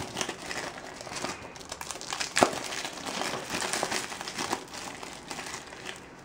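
Clear plastic shrink wrap being peeled off a Blu-ray case by hand, crinkling and crackling continuously, with one sharp snap about two and a half seconds in.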